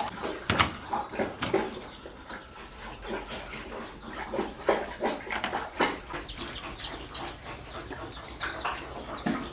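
Farmyard animal sounds, with chicken clucks and four quick high chirps about six to seven seconds in, among scattered short knocks.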